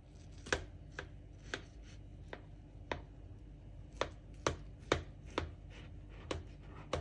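Knife cutting slices in a baked cake in a metal baking tin, the blade knocking the tin in about a dozen short, sharp clicks at uneven intervals.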